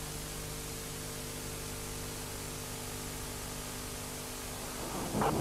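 Steady hiss with a faint low hum underneath: the noise floor of the recording with nothing else playing. Just before the end a louder rushing sound comes in.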